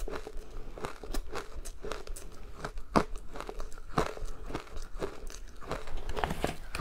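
Close-up crunching of powdery ice coated in matcha powder being chewed, an irregular run of sharp crunches with the loudest about three and four seconds in. Near the end a spoon scoops more ice from the plastic container.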